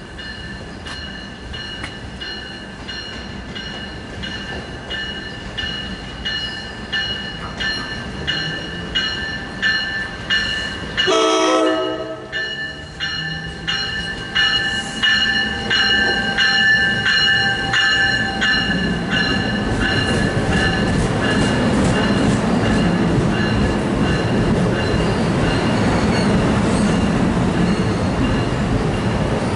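A bell ringing in a steady quick rhythm while a train approaches; a short train-horn blast sounds about a third of the way in, then the train's running noise and wheel sounds grow steadily louder as it pulls in.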